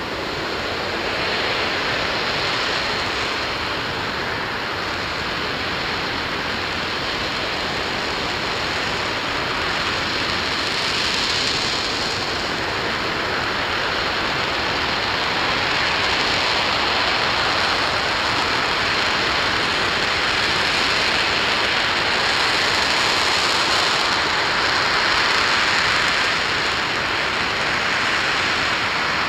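Aerojet Rocketdyne RS-25 liquid-hydrogen/liquid-oxygen rocket engine firing steadily during a ground hot-fire test: a constant loud rushing noise with slight swells in level.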